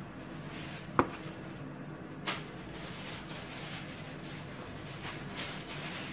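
A kitchen knife cutting mushrooms on a plastic cutting board. A sharp knock with a brief ring comes about a second in, and a smaller one just after two seconds. Softer, repeated cutting strokes follow.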